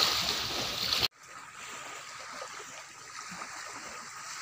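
Small waves washing onto a sandy beach, heard as a steady hiss of water. It is louder for the first second, cuts off suddenly, then carries on quieter.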